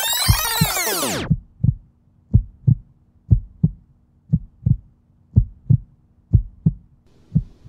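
Heartbeat sound effect: paired low thumps, about one beat a second, over a faint steady hum. For the first second or so a loud whoosh sweeps over it, rising and then falling in pitch, and cuts off.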